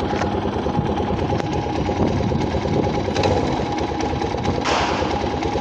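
Italika DM 250 motorcycle engine running with a fast, steady clatter of ticks, which the owner likens to a typewriter and fears is a connecting-rod knock, though the Italika mechanic calls it normal for the DM and the valves have already been adjusted. A brief rush of hiss comes near the end.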